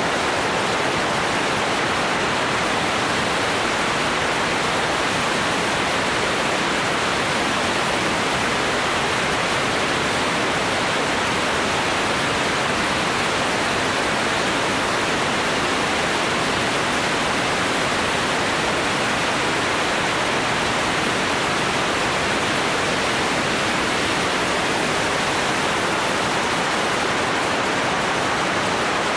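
Steady rushing wind noise over a motorcycle-mounted camera's microphone while riding at speed: an even hiss with no engine note standing out.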